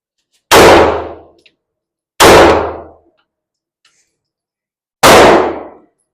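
Three pistol shots from a Beretta PX4 Storm, the second about a second and a half after the first and the third nearly three seconds later. Each is a sharp crack loud enough to overload the recording, with a short ringing tail.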